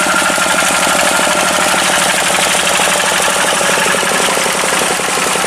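Farm tractor's diesel engine running steadily with a rapid, even knocking beat.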